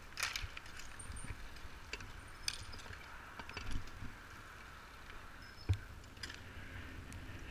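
Bicycles rolling on an asphalt court, with a steady rumble of wind and tyre noise and scattered sharp clicks and knocks from the bikes and polo mallets. The loudest knock comes about three-quarters of the way through, and there are a few short high squeaks.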